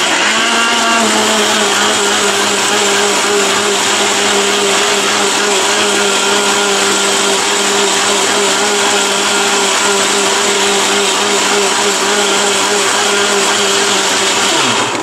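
Orpat 1600-watt blender motor, rated 22,000 rpm, running flat out and grinding a wet paste in its steel jar. It makes a steady high whine that settles within the first second and cuts off at the end.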